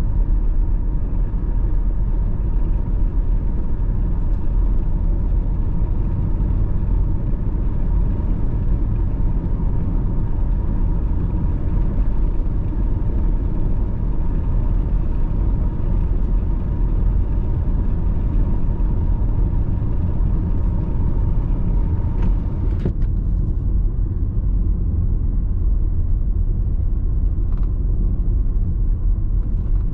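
Steady low rumble of a car driving along a paved road: tyre and engine noise. A faint steady whine runs under it and stops suddenly about three quarters of the way through, with a few faint clicks near the end.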